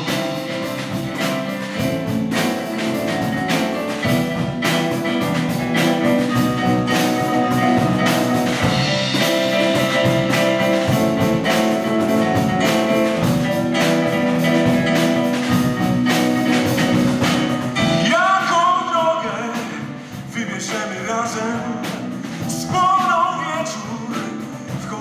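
Live big band of trumpets, trombones, saxophones, piano and drums playing an instrumental passage between verses, with regular drum strokes under sustained brass chords. From about eighteen seconds in, a male voice comes in over the band.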